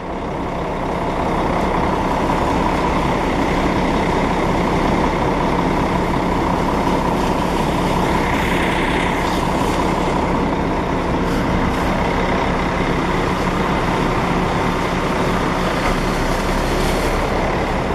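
Intercity coach's diesel engine running close by, a steady low drone as the bus pulls out of its bay.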